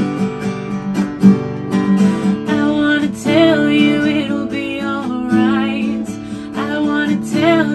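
Acoustic guitar strummed in a steady rhythm, with a woman's singing voice joining about two and a half seconds in.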